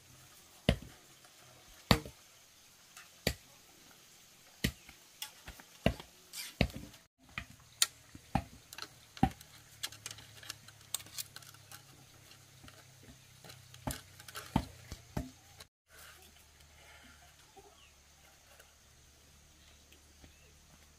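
Sharp knocks and clicks at irregular intervals, some close together, stopping about fifteen seconds in and leaving only faint background.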